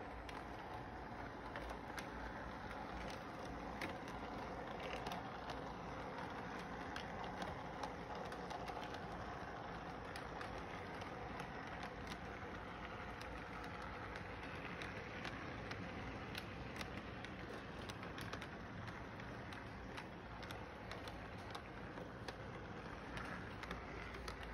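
Three-rail model train running on its track: a steady rolling hum from the locomotive and cars, with frequent light clicks from the wheels.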